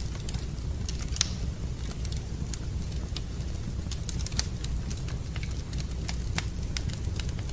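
Wood fire crackling in a fireplace: irregular sharp pops and snaps, a couple louder than the rest, over a steady low rumble.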